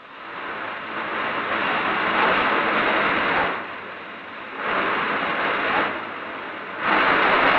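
Overhead crane lifting a steam locomotive in a works shop: a rushing machinery noise that builds over the first second, eases off twice and swells again three times, loudest near the end.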